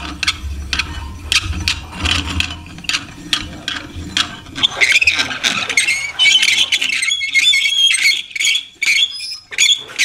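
Well pulley squeaking and clicking as a bucket of water is hauled up by rope hand over hand, with a sustained high squeal from about halfway through.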